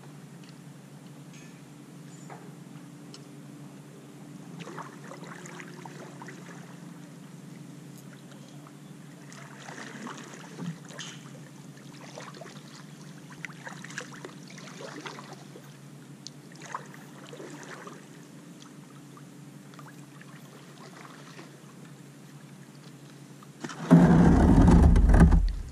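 Kayak paddle strokes: the double-bladed paddle dipping into calm water, with soft splashes and drips over a low steady background noise. Near the end a much louder rushing noise cuts in for about a second and a half.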